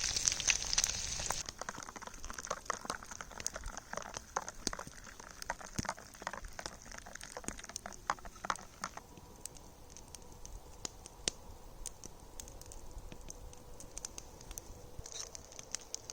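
Breakfast frying in a cast iron pan over a campfire: a loud sizzle that drops away about a second and a half in, then scattered crackles and pops from the pan and fire that thin out after about nine seconds.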